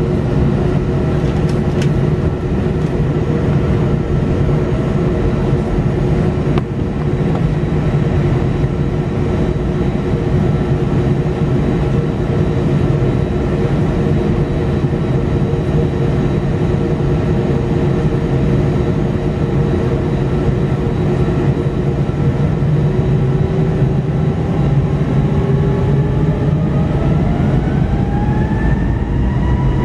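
Airbus A320's jet engines heard from inside the cabin, running at a steady idle while the airliner holds on the runway. From about two-thirds of the way in, a whine starts rising in pitch as the engines spool up for take-off.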